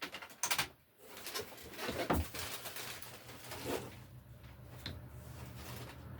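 1999 Lasko 3733 box fan being switched on: a couple of clicks, then its motor starts humming about a second in, and the hum builds steadily as the blades spin up.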